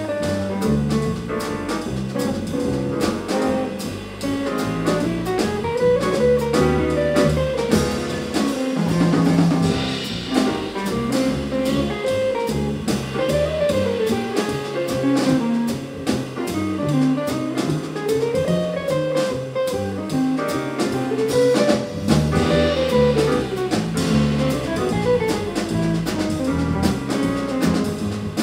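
Jazz quartet playing live: guitar, upright double bass, drum kit and Nord Stage keyboard. A melody line winds up and down through the middle range over the bass's stepping low notes and the drums' cymbals.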